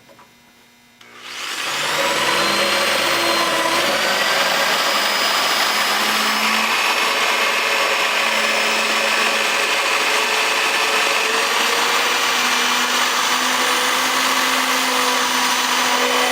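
Ryobi drill boring a pilot hole into a broken steel frame-rail bolt. The motor starts about a second in, winds up over a second or so, then runs as a steady whine with metal-cutting noise.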